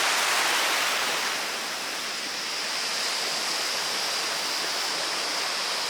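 Rushing river water running steadily over rocks, close by.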